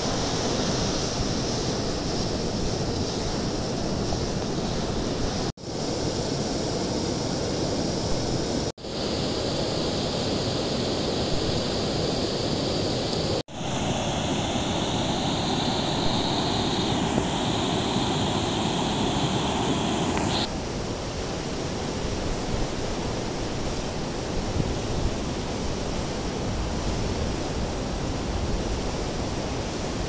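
Steady rushing of river rapids spilling over a weir, a continuous noise with no voices. It drops out briefly three times at edits, and for a stretch in the middle it sounds brighter and hissier before it changes abruptly.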